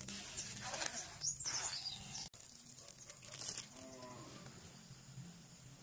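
Plastic scraping and rustling as a plastic trim tool works along the car window and a rain visor's protective film is peeled, stopping abruptly about two seconds in and returning briefly a second later. A short low animal call sounds about four seconds in.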